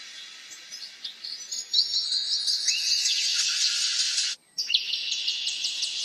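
High-pitched chirping of small birds over a steady insect trill, cutting out completely for a moment a little past the middle, then resuming.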